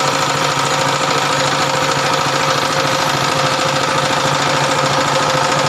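Broom-handle dowel machine running steadily: an even, unchanging mechanical drone with steady tones.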